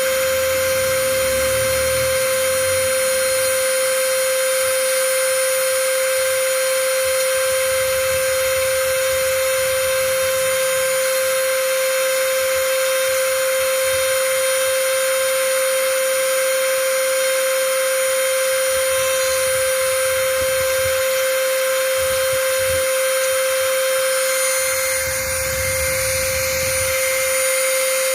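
Small electric motor running steadily with a constant high-pitched whine.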